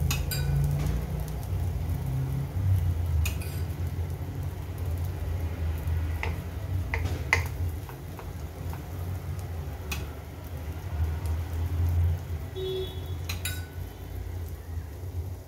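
A steel spoon clinks now and then against a small metal oil pot and the appe pan as oil is spooned over appe batter cooking in the pan. A steady low hum runs underneath.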